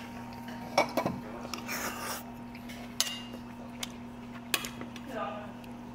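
Spoon and chopsticks clinking and scraping against bowls and dishes while eating, with a handful of sharp clinks and one longer scrape.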